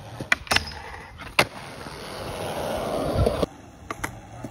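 Skateboard on concrete: several sharp clacks of the board hitting the ground, then the wheels rolling, growing louder before cutting off suddenly, followed by a few more clacks near the end.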